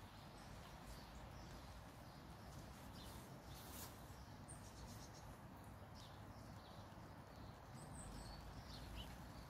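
Near silence: faint outdoor ambience with a low rumble and a few faint, brief high bird chirps.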